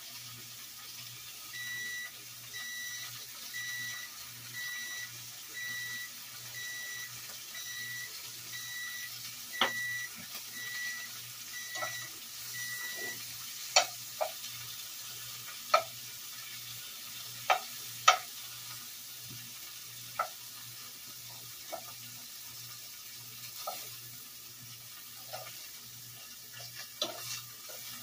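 Slices of deer heart frying in butter in a skillet with a faint sizzle. For the first dozen seconds an electronic alarm beeps about once a second. After that, metal tongs clink sharply against the pan a dozen or so times as the slices are lifted out.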